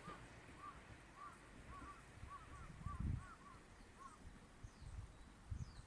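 Faint bird calls: short chirps repeated every half second or so, with a few low thumps, the loudest about halfway through.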